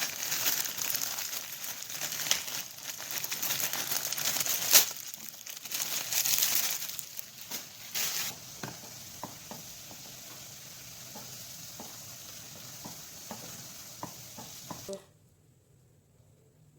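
Food sizzling and crackling in a hot frying pan, with sharp clicks and scraping of stirring, loudest in the first half. It settles to a softer hiss with occasional pops, then cuts off abruptly near the end.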